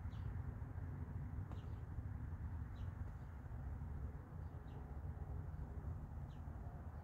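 A bird chirping: five short, falling notes, spaced roughly a second and a half apart, over a steady low outdoor rumble.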